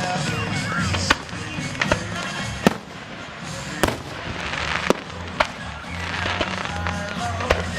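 Fireworks going off: a string of sharp bangs, roughly one a second, with crackling hiss from the bursts twice in between. Background music plays throughout.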